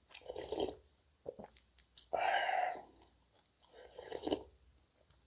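Close-miked chewing and mouth sounds of a person eating, in three short spells, the middle one the loudest.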